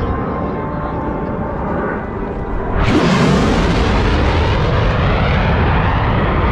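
Brass band music, then about three seconds in a jet aircraft's loud, rushing noise comes in suddenly and holds, slowly thinning: a low jet flyover drowning out the band.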